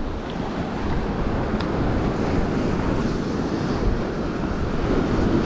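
Ocean surf breaking and washing over the rocks of a jetty, a steady rushing of water, with wind buffeting the microphone.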